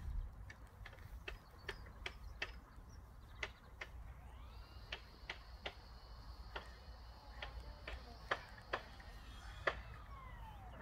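Footsteps on a wood-chip path: a steady run of short crunches, about two to three a second, with low wind rumble on the microphone. A faint high steady whine comes in about four seconds in and falls in pitch near the end.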